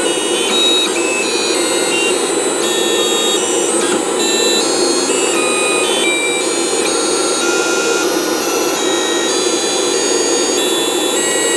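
Stepper motors of a GRBL-driven CNC table whining as the axes move a pen through a drawing, the whine jumping from pitch to pitch every fraction of a second as the moves change, over a steady noise.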